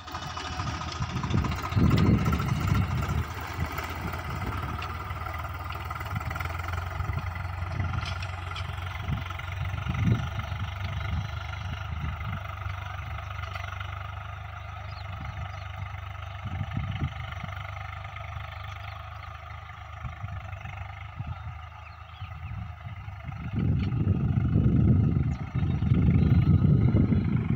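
Swaraj 841 diesel tractor engine running steadily while pulling a seed drill. Low rumbling thumps come and go and are loudest near the end.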